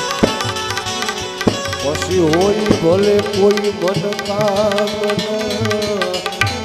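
Gujarati devotional bhajan accompaniment of tabla and Indian banjo (bulbul tarang), with a few sparse tabla strokes. From about two seconds in, a long melodic note swoops down and back up, then is held with a slight waver.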